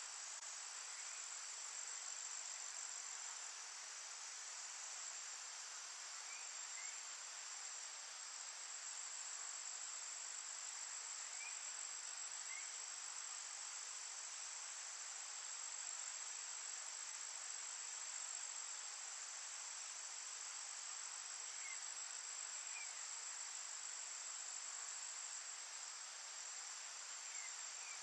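Steady, high-pitched chorus of insects, crickets, trilling without a break. Faint short chirps come in pairs a few times.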